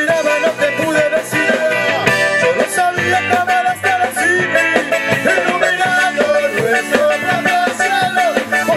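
Live rock band playing a song: electric guitars and keyboard, with a voice singing.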